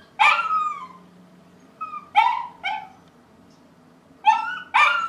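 A dog barking in high, yappy barks: one longer bark falling in pitch near the start, then short barks in quick pairs about two and four seconds in. This is the barking the household says it had to put up with all day, every day.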